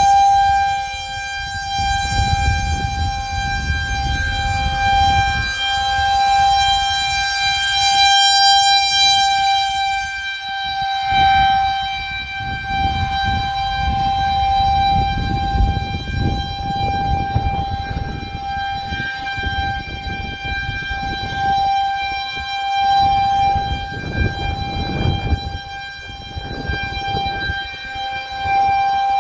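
Federal Signal 2001-130 single-tone rotating electromechanical outdoor warning siren sounding a steady tone for a tornado warning. It holds one pitch without winding up or down, and swells and fades in loudness as the rotating horn sweeps past.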